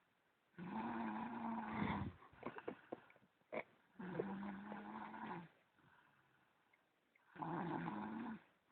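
A person snoring: three long snores a few seconds apart, each with a steady low buzzing tone. Small clicks and crackles come between the first and second snore.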